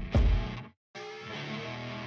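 Background music with a guitar: two heavy low hits, a short break to silence just before a second in, then steady held notes.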